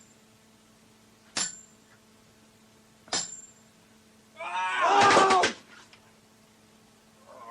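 Sharp metallic clashes, spaced about a second and a half apart, each leaving a brief high ring, then a wavering, pitched cry lasting about a second.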